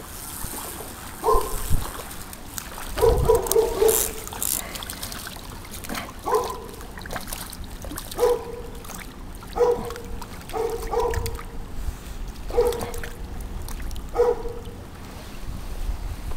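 A dog barking repeatedly, short single barks every second or two, over the steady trickle of a shallow stream.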